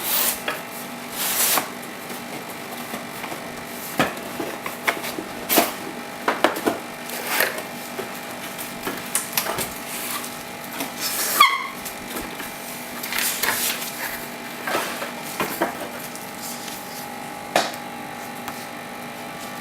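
A maple cutting board and its packaging being handled, with scattered wooden knocks, clunks and rustles. There is a short squeak falling in pitch about halfway through, and a faint steady hum runs underneath.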